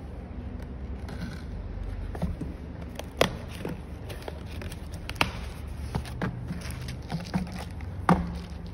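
Cardboard packaging being handled and unwrapped: crinkling and scraping with a few sharp knocks, the loudest near the end as the box is set down on the work mat.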